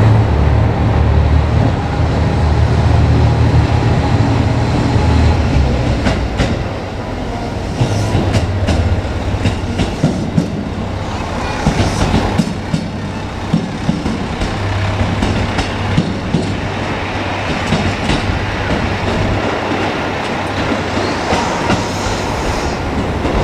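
JR Kyushu KiHa 200 diesel railcar passing: its diesel engine hums loudly at first, then its wheels click over the rail joints for much of the time, with a rising whine near the end.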